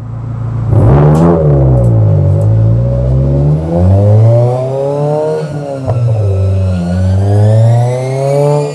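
Exhaust of a 2022+ Subaru WRX's turbocharged 2.4-litre flat-four fitted with a prototype unequal-length header, revved up and down several times. The first rise comes sharply about a second in, and further revs follow.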